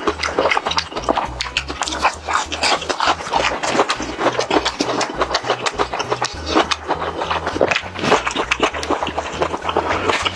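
Close-miked eating of KFC fried chicken: dense crisp crunching and wet chewing clicks, over background music with a pulsing bass.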